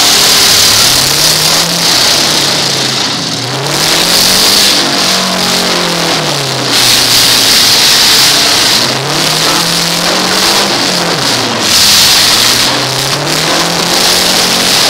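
Demolition derby pickup trucks' engines revving up and falling back about four times, each rev a slow rise and fall in pitch. Underneath is a dense, steady, loud roar of many engines running at once.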